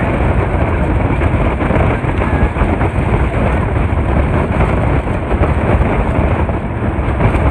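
A speedboat running at high speed: a loud, steady rush of wind buffeting the phone's microphone over the boat's rumble and water noise.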